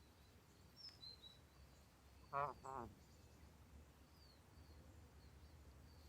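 A sleeping gosling snoring: two short, squeaky, wavering breaths about half a second apart, the second one falling in pitch at its end.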